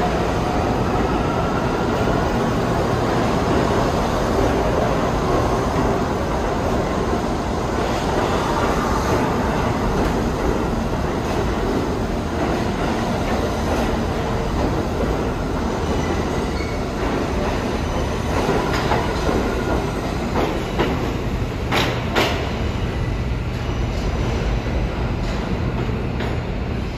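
New York City subway train running along the track, its wheels clattering over the rails with some squeal, and a couple of sharp clanks about two-thirds of the way through.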